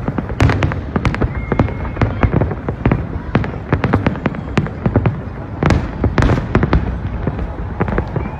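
Fireworks display: a dense, continuous run of sharp bangs and crackles, several a second, over a low rumble, with a cluster of the loudest reports about two-thirds of the way in.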